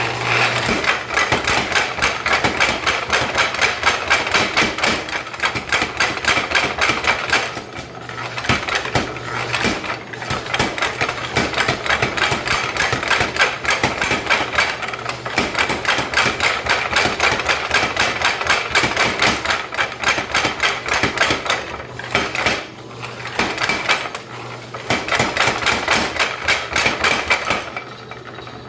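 Mechanical power hammer striking rapidly, several blows a second, on a flatter tool, in runs broken by a few short pauses. The blows stop near the end, leaving the hammer's motor humming steadily.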